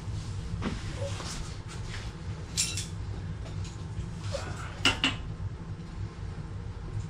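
Scattered metallic clinks and knocks from tools and parts being handled, over a steady low hum. The sharpest are one clink about two and a half seconds in and a quick double clink about five seconds in.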